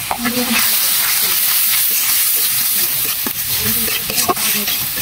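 Onions, green chillies and ground spices sizzling steadily in hot oil in an iron kadai while a spatula stirs them, with a few sharp scrapes and knocks of the spatula against the pan.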